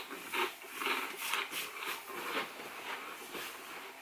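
Close-up chewing of small crisp Koala's March biscuits with white chocolate filling: irregular crunches and mouth noises, several a second.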